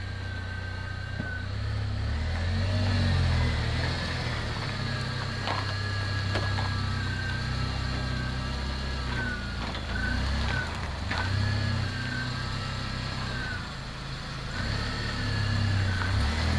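Jeep Wrangler engine running at low speed as the Jeep creeps along off-road, with a low rumble that swells and eases and rises again near the end. A thin whine wavers up and down above it.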